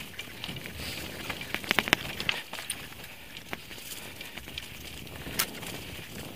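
Mountain bike rolling fast over a dirt and stone trail: steady tyre noise with sharp clicks and rattles from the bike over rough ground, a quick cluster of them about two seconds in and a single sharp knock about five seconds in.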